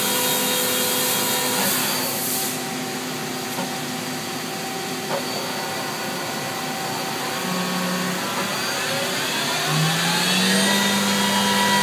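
Spindle of a Mazak VTC200B/50 vertical machining center running up in speed toward 6,000 rpm: a steady machine whine whose tones step up and rise in pitch over the last few seconds. A high hiss cuts off about two seconds in.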